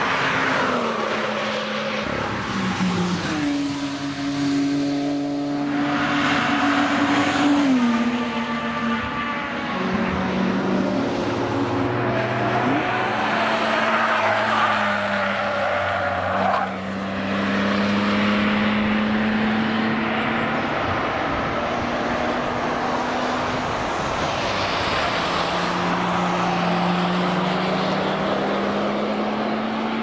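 BMW cars driving past at speed on a race track, one after another. Their engine notes step and glide up and down in pitch as they rev and shift.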